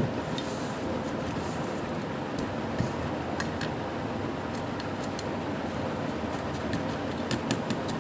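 Steady background hum with a few light clicks and taps.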